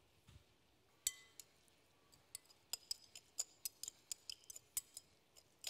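Light glassy clinks against a glass mixing bowl as a salad is tossed in its olive oil and lemon dressing. One sharp clink comes about a second in; from about halfway the clinks come irregularly, several a second.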